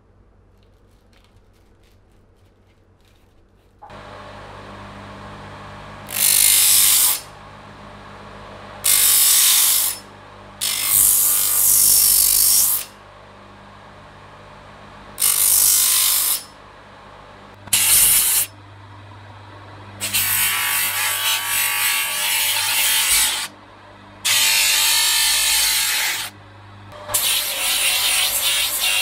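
INGCO electric bench motor with a 60-grit sanding disc, switched on about four seconds in and then humming steadily. A rusty steel axe head is pressed against the spinning disc in about eight passes of one to three seconds each. Each pass is a loud grinding hiss of abrasive on steel that stops when the head is lifted away.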